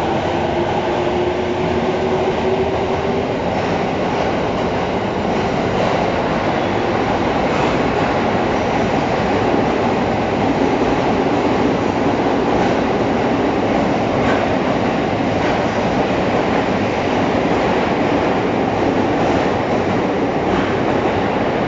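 JR East E217 series electric multiple unit accelerating away from an underground station platform, its cars running past with a steady, loud rumble. In the first few seconds the traction motors give a whine that rises in pitch as the train gathers speed.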